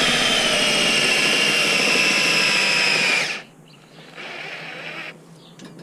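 DeWalt XR cordless drill driving a paddle mixer through wet paper pulp, its motor whine slowly falling in pitch before cutting out about three seconds in, then a brief, much weaker whir. The battery is running flat.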